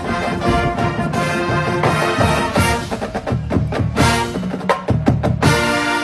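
High school marching band playing, winds over drumline and front-ensemble percussion. A quick run of sharp percussion hits about four to five seconds in is followed by the full band holding a chord near the end.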